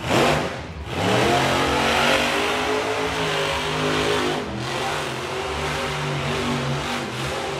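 A monster truck's engine revving hard, its pitch rising and falling as the truck drives across the dirt track, after a sudden loud blast at the very start.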